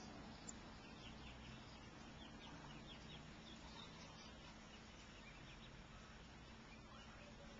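Faint high-pitched peeping of mallard-type ducklings: a run of short, falling chirps, several a second, over a low steady background hum.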